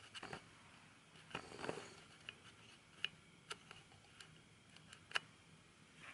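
Faint handling of a plate of fried fritters on paper towel: a short rustle about a second and a half in, then a few sharp, light clicks.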